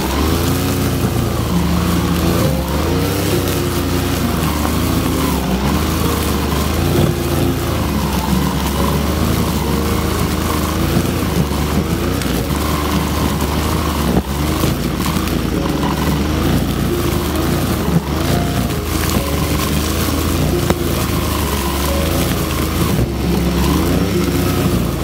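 Brush cutter engine running hard, its pitch wavering up and down as the chainsaw-chain cutting head slashes through grass and leafy weeds, with a few sharp knocks.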